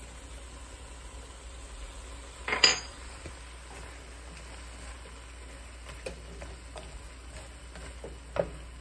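A utensil stirring bitter melon and egg in a stone-coated wok, with a loud clatter against the pan about two and a half seconds in and a few lighter knocks later, over a faint steady sizzle of frying.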